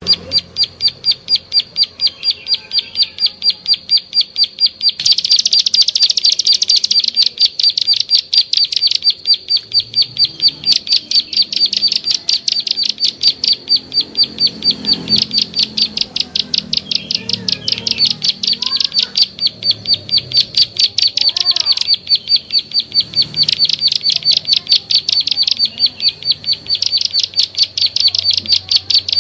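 Plain prinia (prenjak sawah) lure call: an unbroken series of sharp "klik" notes, about four a second, repeated steadily.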